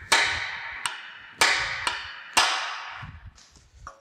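Hammer striking a steel cold chisel to cut off rusted bolts that spin in place on a cast-iron forge. Three hard blows about a second apart, each ringing off, with lighter taps between them and faint clicks near the end.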